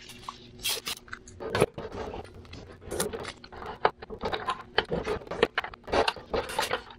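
Irregular clicks, knocks and scrapes of plastic and metal as a spool of flux-core welding wire is handled and pushed onto the spool hub in a MIG welder's wire-feed compartment.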